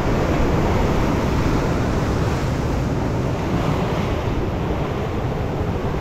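Black Sea storm surf: heavy waves breaking continuously along the shore in a steady, dense wash, with wind noise on the microphone.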